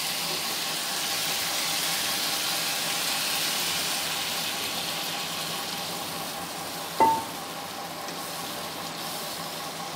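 Prawn, potato and vegetable-stalk curry sizzling in hot oil in a pan on the stove. Water is poured in from a steel bowl and the sizzle grows quieter from about halfway. A single sharp metallic clink comes about seven seconds in.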